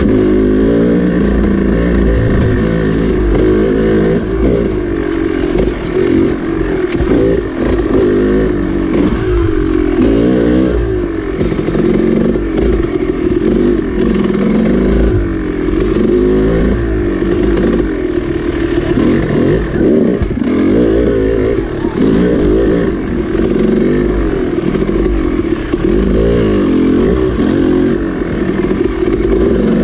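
Dirt bike engine, heard from on the bike, revving up and falling back over and over as the rider works the throttle along a winding trail.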